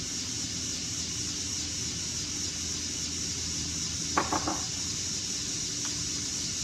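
Steady high-pitched insect chorus, with a quick cluster of three or four short sharp sounds about four seconds in.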